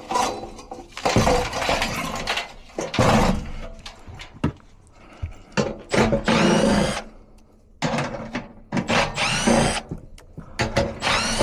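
Tools working an old furnace blower wheel off its motor shaft: several bursts of metal grinding and scraping, some with a wavering whine, with knocks between them.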